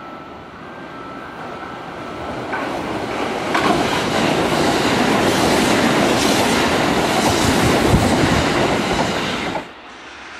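Kintetsu commuter electric train passing through the station without stopping. Its wheels clatter over the rail joints as the sound builds up, stays loud for about six seconds, and is cut off suddenly near the end.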